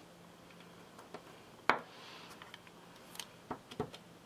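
Small hard clicks and taps of stamping gear: one sharp click a little under two seconds in, then a few quick light taps near the end as a plastic-cased ink pad is dabbed onto a clear stamp.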